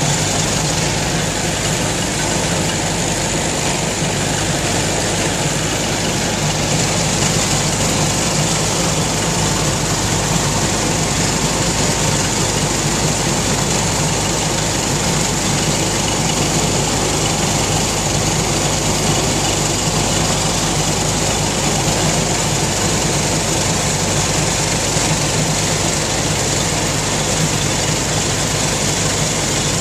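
An old tractor engine and a pull-type one-row corn picker running steadily together while picking standing dry corn.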